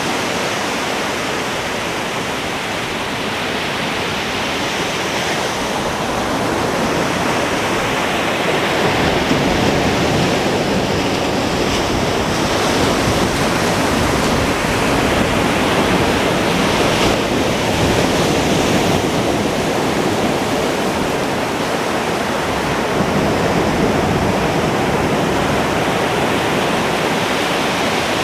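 Ocean surf breaking on a beach: a continuous rushing wash of waves, swelling and easing slowly in loudness.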